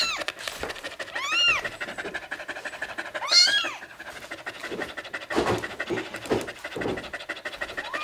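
A young black kitten mewing loudly three times in high, rising-and-falling cries, over a dog panting steadily close by.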